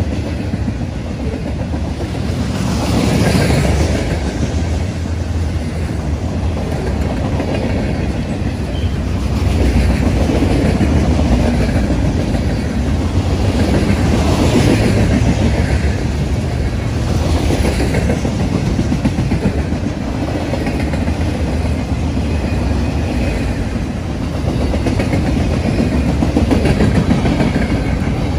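A Union Pacific manifest freight train's mixed cars (boxcars, covered hoppers, tank car) rolling past: a steady rumble of steel wheels on the rails with clickety-clack over the rail joints. The sound swells and eases every few seconds as cars pass.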